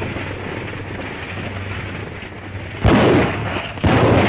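Steady hiss and hum of an old film soundtrack. About three seconds in, a loud bang of gunfire comes, followed by rumbling noise, and a second bang follows a second later.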